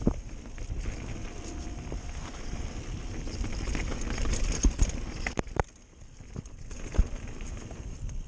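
Mountain bike riding fast down a dirt trail: a steady rumble of tyres on dirt, with scattered knocks and rattles from the bike over bumps and a briefly quieter stretch about six seconds in.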